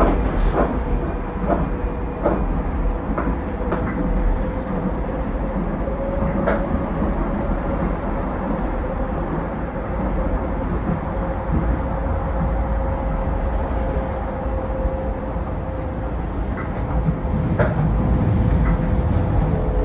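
Docklands Light Railway train running at speed, heard from inside the carriage: a steady rumble of wheels on rail with a motor whine. Irregular clicks and clunks come as the wheels cross rail joints and junction points.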